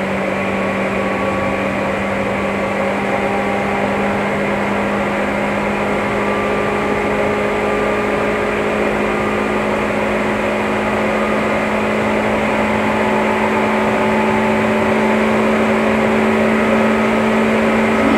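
Running sound heard aboard a Seibu 2000 series field-chopper-controlled electric motor car: a steady hum over rolling noise, its pitch creeping slowly upward and growing a little louder as the train gains speed.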